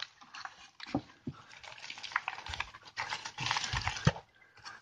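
Cardboard egg-carton flats and a plastic tub being handled: dry rustling and scraping with irregular small knocks and clicks, busiest about three seconds in.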